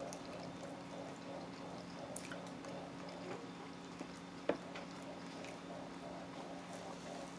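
Faint wet eating sounds: chewing and handling buffalo wings, with a sharp click about four and a half seconds in, over a steady low hum.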